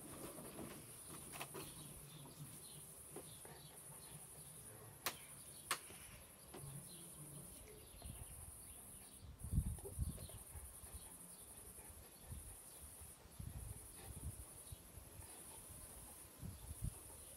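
Faint, steady high-pitched insect chirring that pulses on and off throughout. Two sharp clicks come about five seconds in, and low rumbling noises come around ten seconds and near the end.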